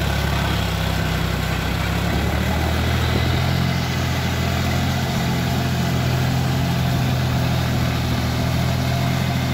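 John Deere 5050D tractor's three-cylinder diesel engine running steadily under load, driving a rotary tiller through a flooded paddy field.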